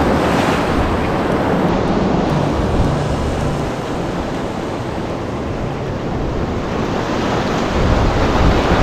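Sea surf breaking and washing on the shore, a steady rush of water with wind buffeting the microphone, swelling louder near the end.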